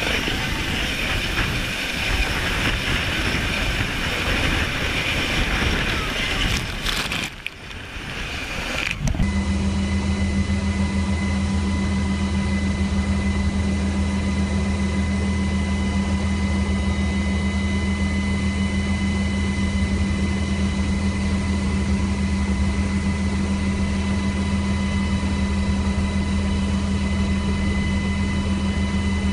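Steady engine noise. For about the first nine seconds it is a broad roar. It then cuts abruptly to a different, unchanging drone made of a low hum with a thin high whine above it.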